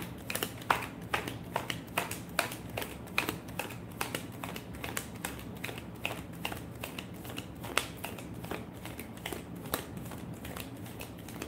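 Tarot cards being shuffled by hand: a quick, irregular run of light card slaps and flicks, several a second, that thins out near the end.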